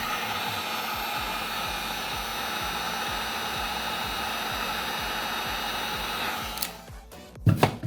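Heat gun blowing a steady rush of hot air onto the phone's charging port board to soften it for removal, switching off about two-thirds of the way through. A few sharp clicks follow near the end.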